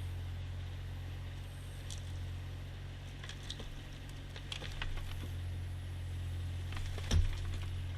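An engine running steadily at a low, even pitch, with scattered light clicks and rattles and one heavier knock about seven seconds in.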